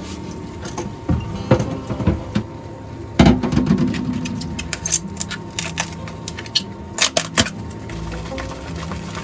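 Kitchen handling sounds: a run of knocks and clinks of utensils and dishes, the loudest one about three seconds in, with a cluster of quick clicks around the middle and again near the end. Soft background music plays under it.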